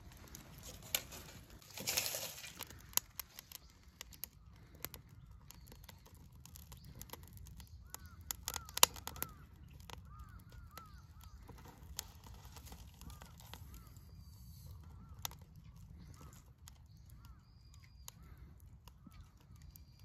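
Small fire of dry leaves, twigs and bamboo crackling in a metal fire pit, with scattered sharp pops and one loud pop about nine seconds in. From about eight seconds in, birds call repeatedly in the background with short rising-and-falling calls.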